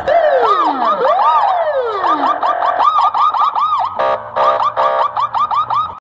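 American police car electronic siren, first wailing in slow sweeps that rise and fall for about two seconds. It then switches to a fast yelp of quick rising and falling whoops, several a second. About four seconds in, a short run of rapid pulsing tones breaks the yelp.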